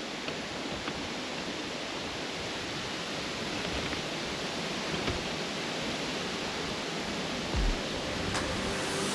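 Steady, even outdoor background hiss with no distinct source, a couple of faint ticks, and a short low thump about three-quarters of the way through.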